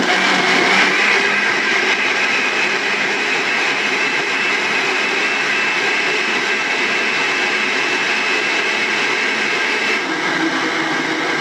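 Countertop blender running steadily, puréeing tomatoes, cucumber and pepper into gazpacho. Its sound changes slightly near the end as the mix turns smooth.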